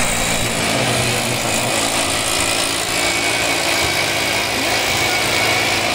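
Stihl backpack mist blower's two-stroke engine running steadily, with a loud rush of air from the spray nozzle.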